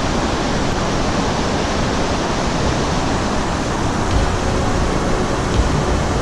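Water pouring over a waterfall: a steady, even rushing noise.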